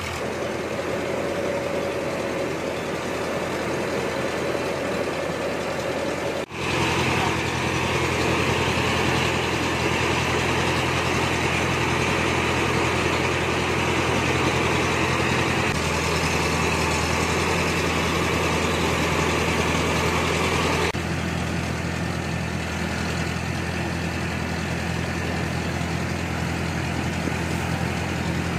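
A belt-driven rice milling machine running steadily: a constant low mechanical drone with a hiss above it. The sound drops out for a moment about six seconds in.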